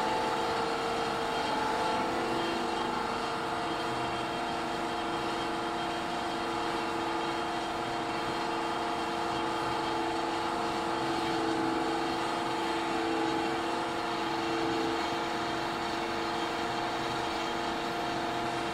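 Plastic granule-making extruder line running steadily: a continuous machine drone with several steady hum tones.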